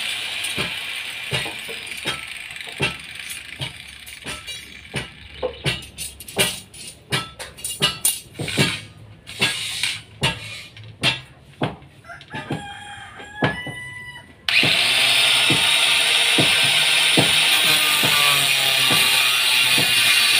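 A run of sharp, irregular knocks and clanks, with a rooster crowing about thirteen seconds in. About fourteen and a half seconds in, a loud steady noise starts suddenly and carries on.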